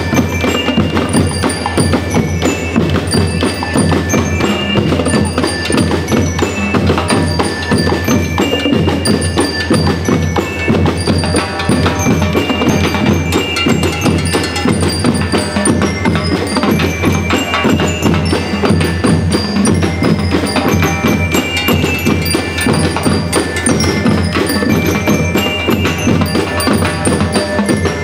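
School marching percussion band playing: snare and other drums keep a steady beat while bell lyres ring out a melody over them.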